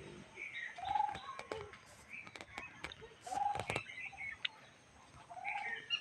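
Chickens calling: a short arched call every two to three seconds, with higher chirps and scattered sharp clicks in between.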